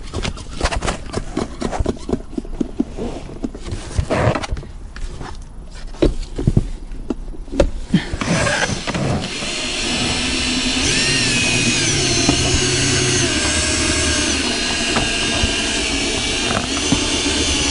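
Irregular clicks and scraping, then about eight seconds in a power tool starts and runs steadily, cutting through the urethane bead that holds a windshield.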